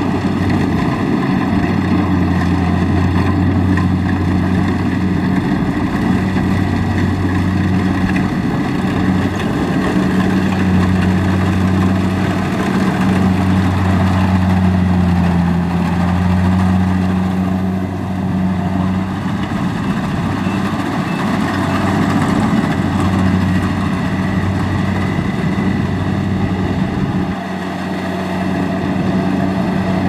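Kubota DC70 Plus rice combine harvester running while it cuts and threshes standing rice: a steady diesel engine drone over the whir of the threshing machinery, its low hum rising and falling slightly.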